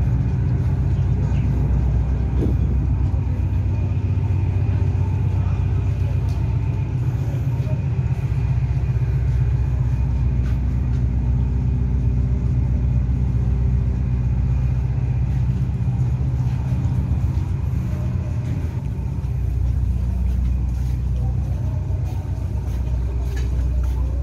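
Steady low rumble, with faint voices behind it.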